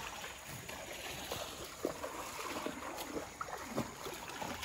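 Shallow creek water running and sloshing as a herd of Jersey cows wade through it, a steady watery hiss with small splashes from their legs.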